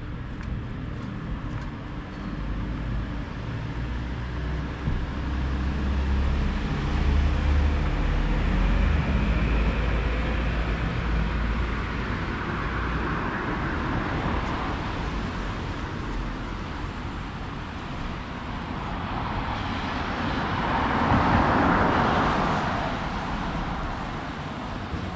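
Road traffic: a steady rumble of passing cars, with one vehicle swelling louder as it passes about halfway through and another, louder still, near the end.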